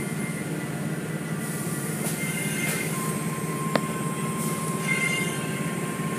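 Automatic tunnel car wash machinery running: a steady mechanical hum from the conveyor and the cloth curtains and brushes working over a foam-covered car, with a hiss of water spray. A steady high tone comes in about three seconds in, with a sharp click just before four seconds.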